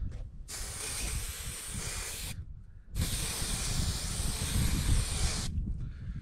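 Aerosol can of spray adhesive hissing in two long bursts, about two seconds and then about two and a half, with a short break between.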